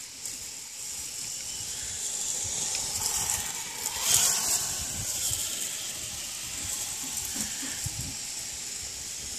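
Axial Yeti RC truck's brushless motor and drivetrain whining as it drives across grass. Loudest about four seconds in as it passes close by, then fading as it runs off into the distance.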